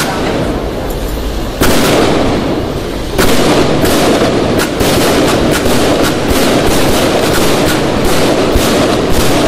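Firecrackers going off: a single bang about a second and a half in, then from about three seconds in a rapid barrage of bangs, several a second, over a constant rumble.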